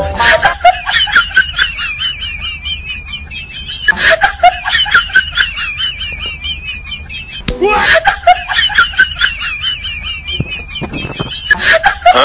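A high-pitched, wavering snickering laugh, played as a sound effect that loops and starts over about every four seconds.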